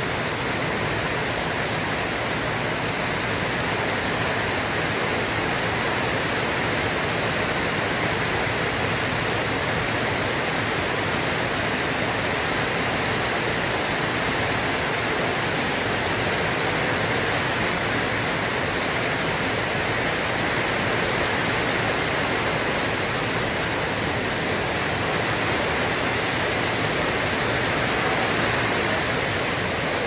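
Heavy tropical downpour: a steady, even hiss of rain falling on the sheet-metal roof overhead and the flooded concrete yard.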